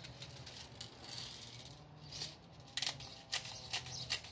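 Glock 18C green-gas blowback airsoft pistol fired in single shots, sharp cracks about twice a second from near the three-second mark.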